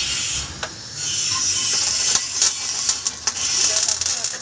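Electric arc welding on a steel trailer frame: the arc's steady crackling sizzle, broken off for about half a second near the start and then struck again.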